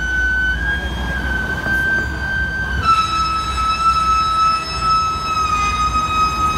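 Steady high-pitched whine from a 2011 Hino roll-off truck's Gal Fab hydraulic hoist as it works a container, over the low rumble of the truck's engine. The whine steps down in pitch about three seconds in and holds there.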